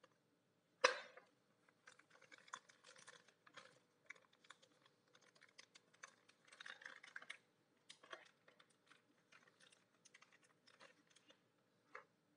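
Faint crinkling and crackling of small plastic parts bags being handled and opened, with light clicks of small metal parts. A sharp knock about a second in is the loudest sound.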